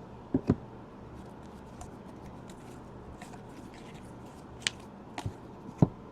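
Trading cards being handled on a table: a few soft taps and clicks as cards and sleeves are set down and slid, two near the start and three more near the end, over a faint steady hum.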